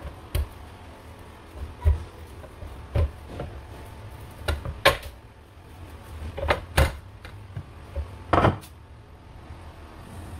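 Wooden rolling pin rolling out pastry dough on a floured metal baking tray, with about eight separate knocks and thumps as the pin is set down and pushed against the tray. A low hum runs underneath.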